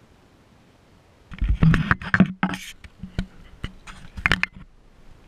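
Close knocks, clatters and scrapes of a small action camera being handled and repositioned right against its microphone. They start about a second in, in irregular bunches.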